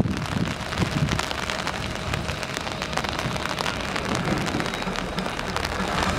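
Steady rain with many small drop hits, over a low rumble from the idling diesel engine of a Class 121 'bubble car' railcar.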